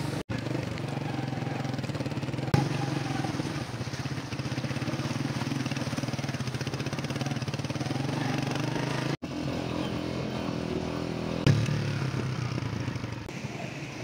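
Motorcycle engine running steadily while riding a rough mountain dirt track, with a couple of short knocks, and the sound cut off abruptly for a moment about nine seconds in.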